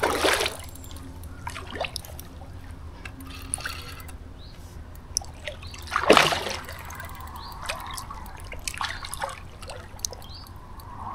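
Water splashing and trickling as a landed carp thrashes in shallow water at the bank: a splash at the start and a sharper, louder one about six seconds in, with dripping and small trickles between.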